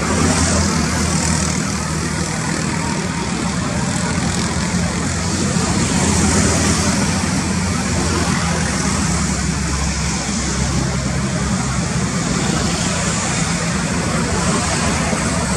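Airbus A320 jet engines running steadily at low thrust while the airliner taxis, an even rumble with a high whine over it.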